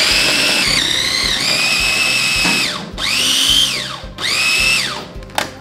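Electric food processor chopping shredded carrots into a fine pulp, run in three pulses: a long one, then two short ones. Each pulse ends with the motor's whine falling in pitch as the blade spins down.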